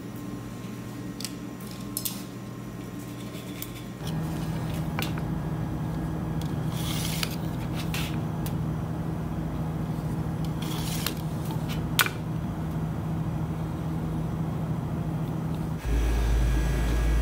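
Bakery kitchen work on a tray of kunafa: soft squelches and scrapes as syrup is ladled over it and it is cut into pieces with a blade, over a steady machine hum. Scattered clicks of metal and utensils, the sharpest about twelve seconds in; the hum changes abruptly twice.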